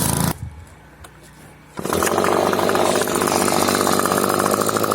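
A small gasoline engine runs and cuts off a fraction of a second in. From about two seconds in, a two-stroke gas leaf blower runs steadily at high speed, with a fast even pulse.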